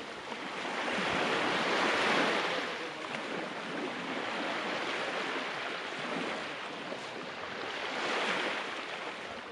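Sea waves washing onto the shore, the surf swelling and fading in slow surges a few seconds apart.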